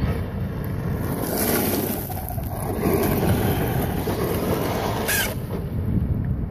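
Traxxas Rustler 4x4 RC truck driving close past, its electric motor whining and its tyres hissing over loose gravel, from about a second in until about five seconds in, over a steady rumble of wind on the microphone.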